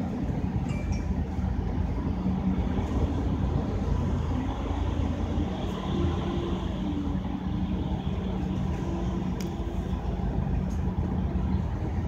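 Scania K310UD double-decker bus's diesel engine running, a steady low drone.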